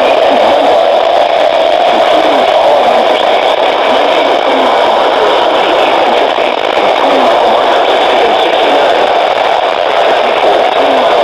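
Loud, steady radio static: an even hiss from a receiver with poor reception, with no clear voice or alert tone.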